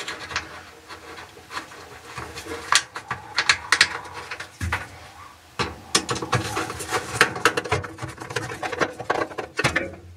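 Hand screwdriver turning screws into the sheet metal of a dryer's lint-trap housing: irregular small clicks and scrapes of the tip working in the screw heads.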